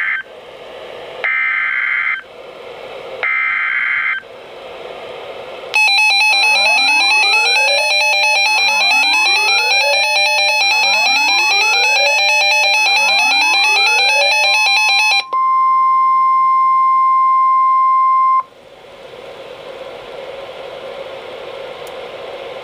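Emergency Alert System tones from NOAA Weather Radio over a receiver. It opens with short screeching SAME header data bursts. A loud electronic alert follows, steady high tones with rising sweeps repeating about every two seconds, then a single steady warning tone for about three seconds, then radio hiss.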